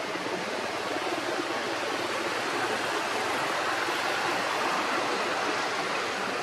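Steady rushing outdoor noise with no distinct events, swelling slightly in the middle.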